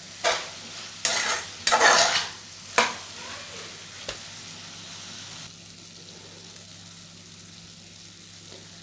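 Steel spatula scraping and stirring vegetables in a non-stick frying pan, about four strokes in the first three seconds. Then a low steady sizzle as the vegetables fry over a low flame.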